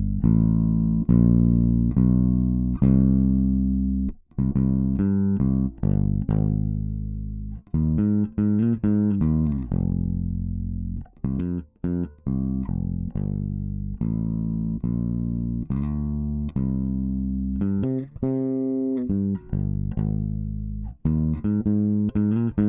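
Recorded electric bass guitar track playing a line of plucked, ringing notes with a few short breaks between phrases, run through Studio One's stock compressor plugin.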